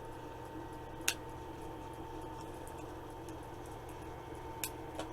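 Two sharp clicks from plastic toy packaging being pried at and forced open, one about a second in and one near the end, over a steady room hum.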